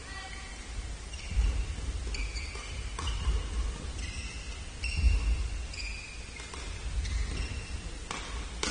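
Badminton doubles play in a sports hall: shoe soles squeaking briefly and repeatedly on the court floor, heavy footfalls, and a few sharp clicks of racket strikes on the shuttlecock.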